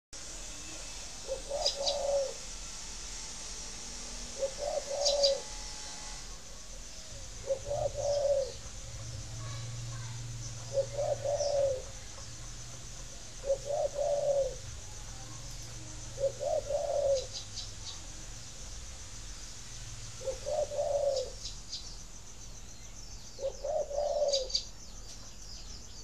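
Spotted dove cooing: a short phrase repeated about every three seconds, with thin high chirps from other birds in between.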